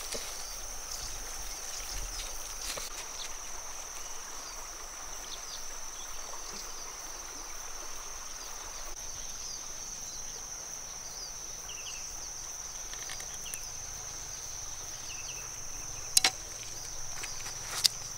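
Steady high-pitched insect drone with faint short chirps here and there; near the end, two sharp clicks about a second and a half apart.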